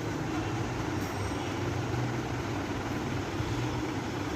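Steady low hum and rumble, unchanging throughout.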